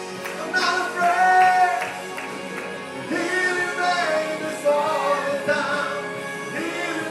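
A man singing a gospel song into a microphone over instrumental accompaniment.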